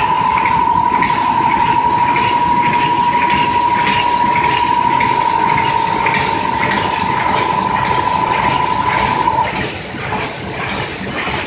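YC 1100 die cutter running: a rhythmic mechanical clatter from its feed-and-cut cycle at about two strokes a second. A steady high whine runs under it and cuts off about nine and a half seconds in.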